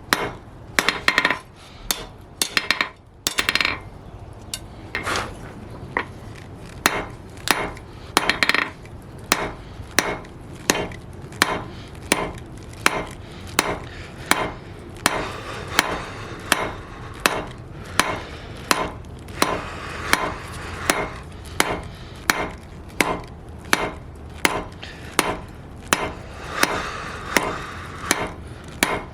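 Hand hammer striking steel flat bar on an anvil in a steady rhythm, about two blows a second.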